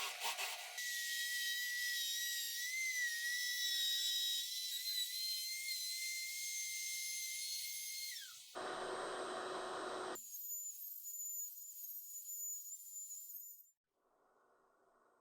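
A power tool's motor whining steadily at a high pitch, the pitch dropping as the motor winds down about eight seconds in. A short burst of rough noise follows, then another high whine for a few seconds, and near silence at the end.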